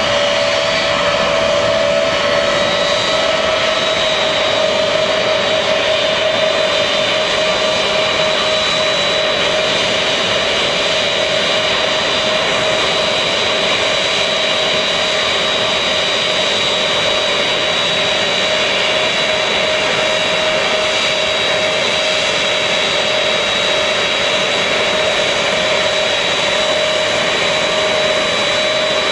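Large military transport aircraft's engines running steadily: a loud, even rush with a constant high whine and a lower steady hum.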